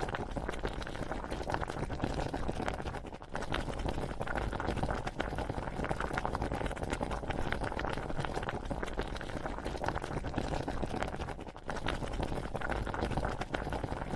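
Cilok boiling in a pot of water, with dense, steady bubbling that drops out briefly twice.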